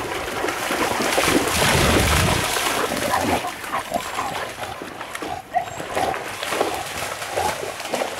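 Shar-pei dog splashing through shallow pond water, loudest about one to two seconds in, with short, repeated animal calls through the second half.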